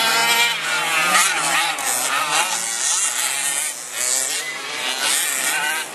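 Radio-controlled off-road racing trucks running around a dirt track, their motors whining and rising and falling in pitch as they speed up and slow down, over a steady hiss.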